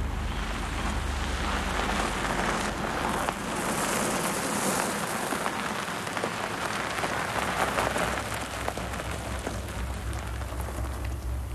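A 1950s Cadillac sedan rolling up a gravel road and stopping: tyres crunching over the gravel in a steady gritty hiss, with a low engine hum underneath.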